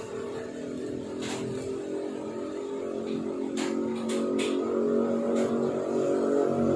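A motor running steadily, a hum of several pitched tones that slowly grows louder, with a few sharp ticks.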